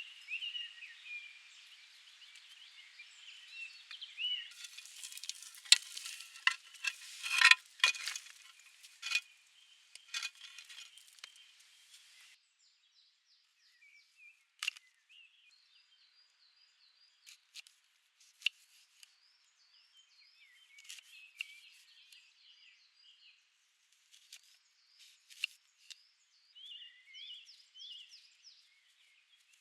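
Small birds singing in short repeated chirps. About five to ten seconds in, a run of sharp clinks and crackles sounds over a light hiss.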